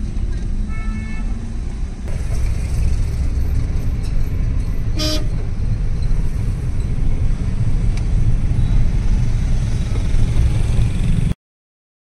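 Steady low rumble of road traffic heard from inside a moving vehicle, with two short vehicle horn toots: a faint one about a second in and a louder one about five seconds in. The sound cuts off suddenly just before the end.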